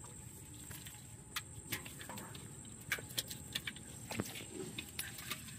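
Small fish and shrimp being shaken out of a trap net into a pot, landing and flapping: an irregular run of sharp ticks and taps.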